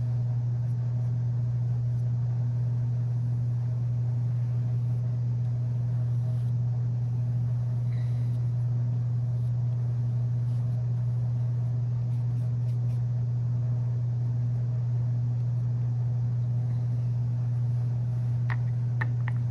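A steady low-pitched hum that does not change.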